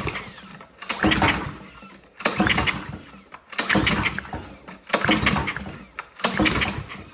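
Recoil pull-start on a Honda GCV190 engine at full choke: about five hard cord pulls, each cranking the engine for under a second, with no firing. It is a no-start, which the mechanic suspects comes from old gas clogging the carburetor.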